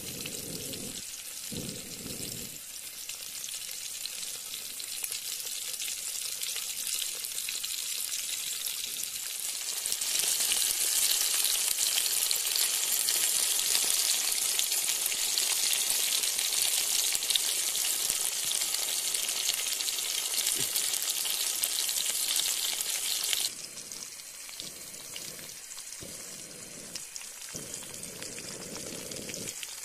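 Food frying, a steady sizzle that grows louder about ten seconds in and drops off suddenly about three-quarters of the way through.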